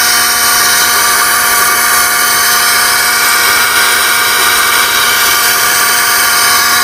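Air-powered (pneumatic) pilot-ladder winch motor running steadily as it lowers the combination ladder down the ship's side: a continuous high whine over a hiss of air.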